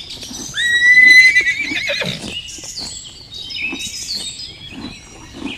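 A horse whinnying: one loud call that rises, holds with a quavering pitch and trails off, followed by fainter high calls.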